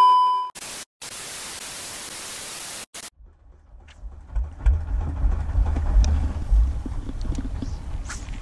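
A loud, high steady beep cut off about half a second in, followed by a burst of TV-static hiss that runs for about two seconds and stops abruptly, an edited transition effect. From about three seconds in, low, gusty wind buffeting on the microphone.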